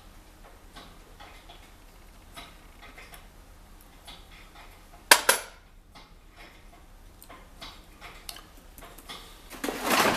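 Light metallic ticks and clinks of tools and steel gearbox parts being handled during a manual-gearbox teardown, with one sharp metal clatter about five seconds in and a run of louder clinks near the end.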